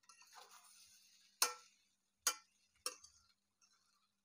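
A spoon stirring rice in a stainless steel pan: a soft scraping at first, then three sharp clinks as the spoon strikes the pan, each under a second apart.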